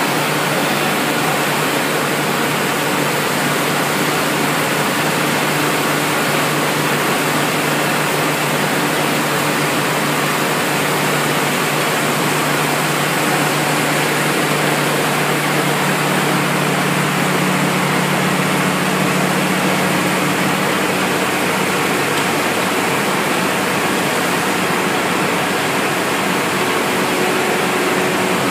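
Wood pellet production line machinery running: a loud, steady rushing noise with a low hum under it.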